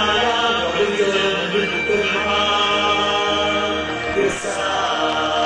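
Show music over loudspeakers: sustained chant-like vocal tones over a held accompaniment.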